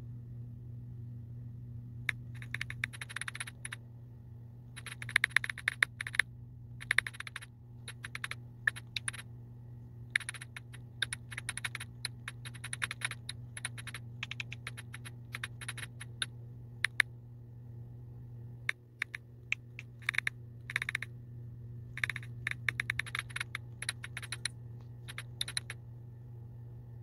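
Typing on a smartphone's on-screen keyboard: bursts of rapid key clicks with short pauses between words and phrases, over a steady low hum.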